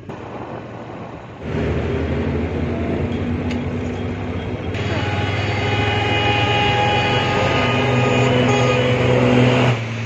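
Heavy vehicle engines running steadily with traffic noise, jumping louder about a second and a half in.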